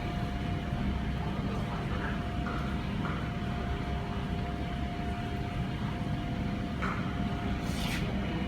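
Steady low rumble and hum of room background noise with a faint constant whine, and a couple of brief scratchy sounds near the end.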